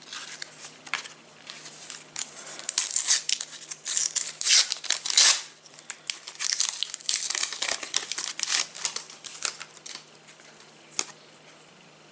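Foil wrapper of a trading-card pack being torn open and crinkled by hand, in a run of rustling bursts that are loudest in the middle, with one last sharp crackle near the end.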